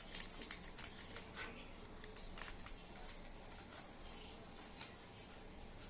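Sheet of paper rustling and crinkling as it is folded and creased by hand, a quick run of crackles over the first two to three seconds, then quieter, with one sharp tick near the end.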